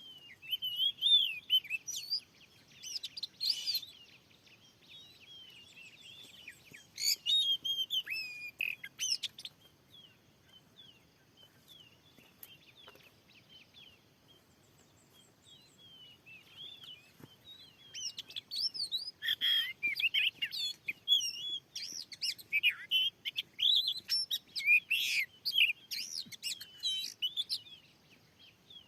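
Oriental magpie-robin (kacer) singing: bursts of rapid, varied whistled phrases, loudest about a second in and again through the second half, with a quieter lull in between.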